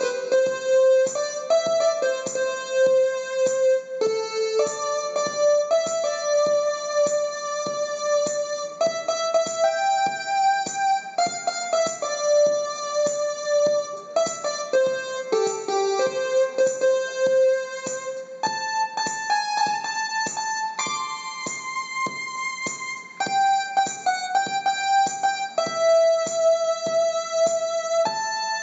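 Electronic keyboard playing a tune: a melody of held notes over an even accompaniment of about two strokes a second.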